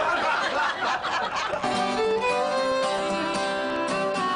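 Fiddle and acoustic guitar playing an old-time tune together, with clear held fiddle notes over the guitar from about a second and a half in. The opening stretch is a denser, noisier mix.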